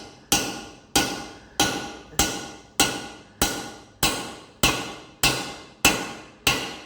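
Hammer driving a steel wheel stud into a semi-truck wheel hub: about eleven even, ringing metal-on-metal blows at a little under two per second. The stud is being driven home until it seats.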